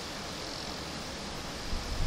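Steady outdoor ambient hiss with a breeze, and a short low rumble near the end.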